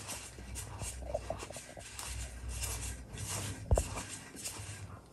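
Faint rustling and scraping as a table leg is lined up and turned by hand onto a double-ended screw in a paper-honeycomb tabletop, with one knock of the leg against the board about three-quarters of the way through.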